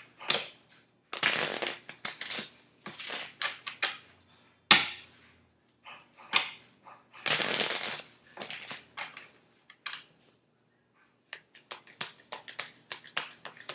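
Tarot cards being shuffled and handled: an irregular run of short bursts and sharp clicks, with a sharp snap about five seconds in and a longer burst a couple of seconds later.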